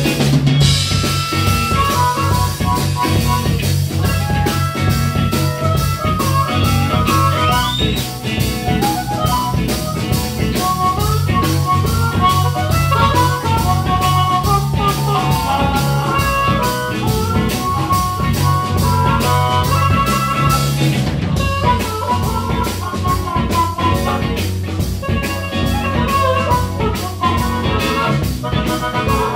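Blues-rock band playing live: a harmonica played through a vocal mic carries the lead over electric guitars, bass guitar and a steady drum-kit beat.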